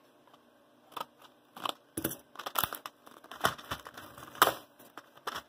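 A plastic blister pack crinkling and crackling as it is cut open with scissors, in a run of irregular snips and crackles starting about a second in.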